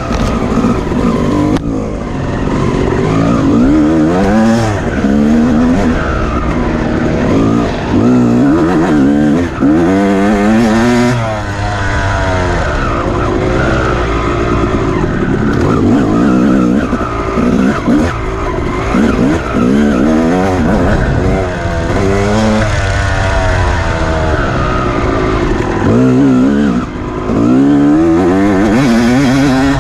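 Off-road dirt bike engine revving up and dropping back over and over as the throttle is worked, its pitch rising and falling every second or two over a steady rough rumble.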